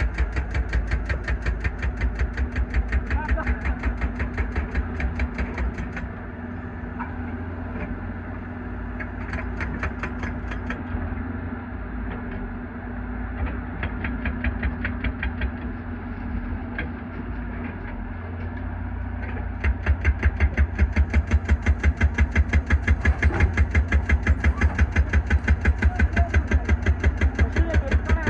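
Mini excavator's engine running with an even pulsing beat of about four a second; it quietens about six seconds in and comes back louder about twenty seconds in.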